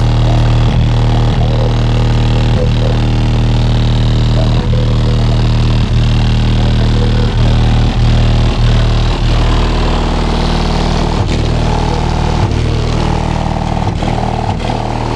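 Very loud bass from car-audio subwoofers, 15-inch drivers powered by a 12,000-watt Crescendo amplifier, playing steady, deep held notes during a bass demo.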